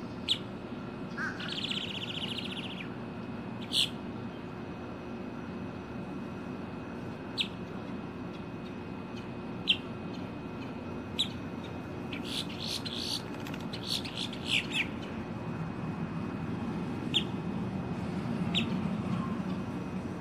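Female boat-tailed grackle calling and singing: single sharp call notes every few seconds, a harsh rattling chatter about a second in, and a quick run of notes near the middle.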